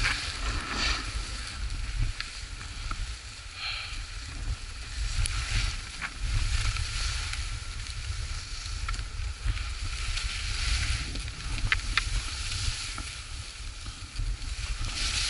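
Skis hissing and scraping over packed, chopped-up snow during turns, with a low wind rumble on the microphone and a few sharp clicks.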